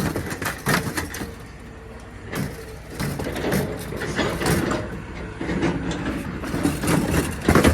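Irregular metal knocks and clanks from hand tools prying apart an air-conditioner coil, with vehicle engines running underneath.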